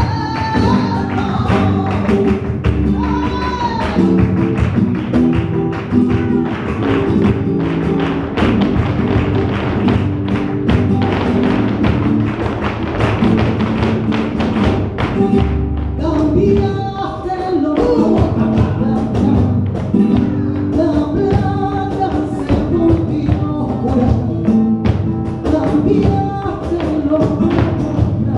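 Live flamenco music with singers and guitar. Sharp percussive strikes come thick and fast in the middle stretch, and the singing returns over the second half.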